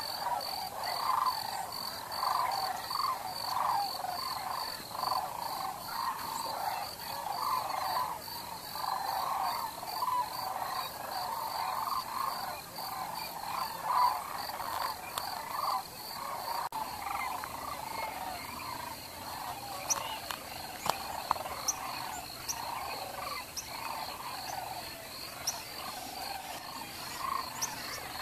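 A dense chorus of many animals calling at once, rising and falling without a break. Above it runs a steady, evenly pulsing high-pitched trill.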